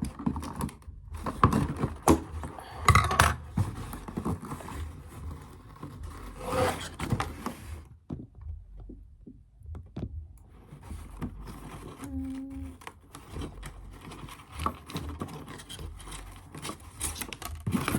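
Hands handling a drone and its packaging: irregular scraping, clicks and knocks, with a quieter pause about halfway through.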